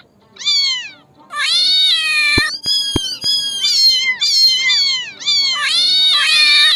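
Kittens mewing: a rapid series of high, falling mews, several at once, with a short pause about five seconds in.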